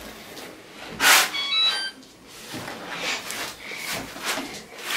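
Self-balancing hoverboard being switched on: a knock about a second in, then its startup jingle, a quick run of short high electronic beeps. Light knocks and scuffs follow as it is stepped on, with another short beep near the end.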